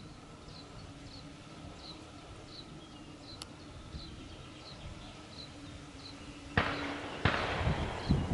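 A small bird's short high chirp repeated steadily, about once every half second or so. About two-thirds of the way through, wind suddenly buffets the microphone with a loud rumbling rush that keeps on gusting.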